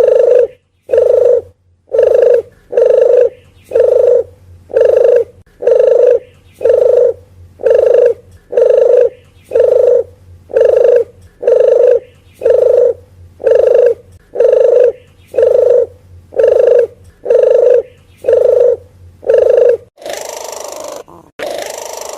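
A puter geni (deruk geni) dove calling as a lure: a steady run of about twenty short, low coos, roughly one a second. Near the end comes a longer hoarse phrase before the coos start again.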